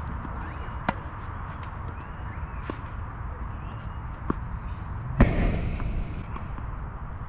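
Tennis balls struck by racquets in a doubles rally: sharp hits about a second in, near three seconds and near four and a half seconds, then a much louder, sharper knock with a short ring after it about five seconds in. A steady low rumble lies underneath.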